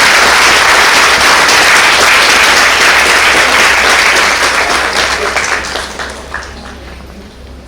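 Audience applauding at the end of a lecture: steady, loud clapping for about five seconds that then dies away, with a few last scattered claps near the end.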